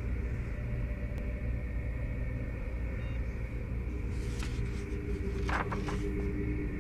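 A low, steady cinematic drone from a dark ambient music bed, with a few held tones over it. There are brief soft hissing accents about four and a half to six seconds in.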